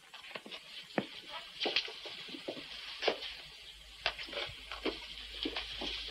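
Slow footsteps of a man's hard-soled shoes on a hard floor, short irregular steps about two a second, over a steady hiss.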